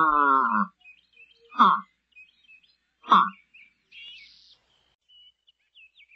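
A large animal's long, pitched call that falls in pitch and ends under a second in, then two short calls, over faint high bird chirps.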